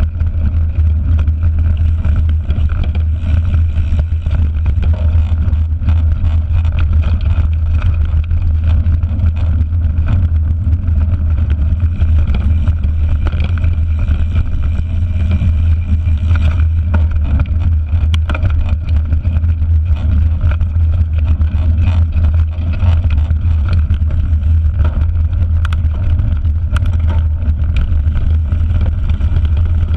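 Steady low rumble of wind buffeting and trail vibration picked up by a GoPro camera on a mountain bike's handlebar while riding a rough dirt and grass track, with a few sharp clicks from the bike in the second half.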